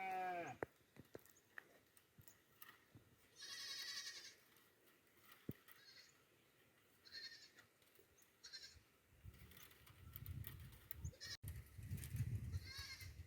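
Goats bleating several times: a falling call at the start, a longer quavering bleat about three and a half seconds in, and shorter bleats later. A low rumble comes in over the last few seconds.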